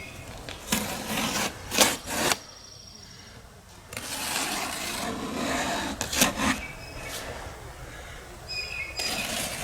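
Cardboard shipping box being handled and opened: scraping and rubbing of cardboard in short bursts, with a longer stretch of scraping about four seconds in.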